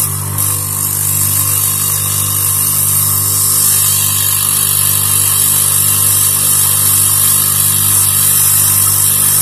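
Small lathe motor running steadily, with a steady hiss from sandpaper held against the spinning cork float body.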